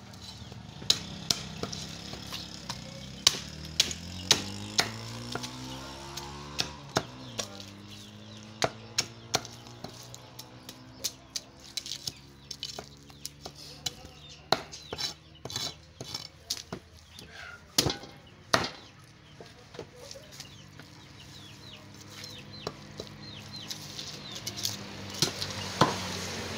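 Heavy broad-bladed knife chopping through a whole fish on a wooden chopping block: sharp irregular thuds, roughly one or two a second, over a steady low hum.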